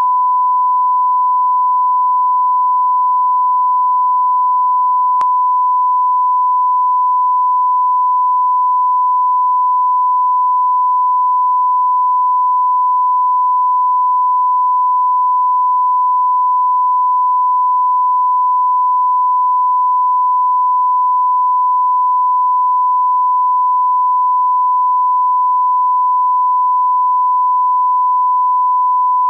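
Steady 1 kHz reference test tone of the kind played with colour bars (bars and tone), one unbroken beep at a single pitch.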